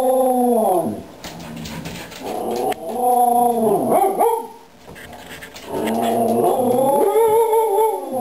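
A long-haired dog yodeling for a treat: drawn-out, howl-like calls that bend up and down in pitch, three in a row, the last one wavering near the end.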